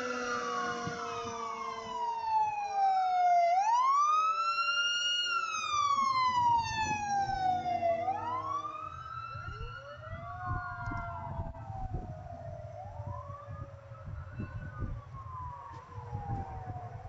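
Fire truck siren sounding a slow wail: each cycle sweeps up quickly and then slides slowly down over about four seconds. It is loudest in the first half and grows fainter toward the end, over a low rumbling noise.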